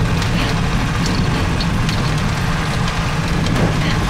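Vehicle engine running steadily while driving along a dirt road, an even low drone.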